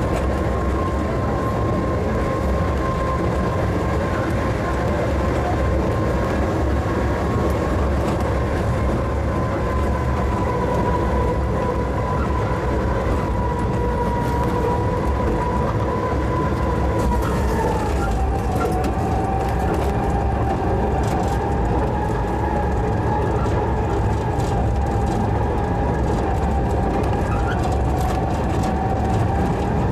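Postojna Cave's electric tourist train running along its narrow-gauge track: a steady rumble of wheels on rails with a high whine that drops a little in pitch about two-thirds of the way through.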